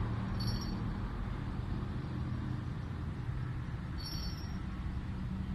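Steady low rumble of road traffic, with two brief high tinkles of the twin bite-alarm bells clipped to the fishing line, about half a second in and again about four seconds in.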